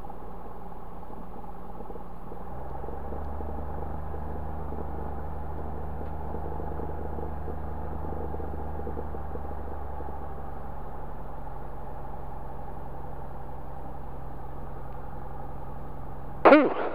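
Light aircraft's piston engine running steadily at taxi, heard from the cockpit behind the spinning propeller. Its note drops slightly about two and a half seconds in.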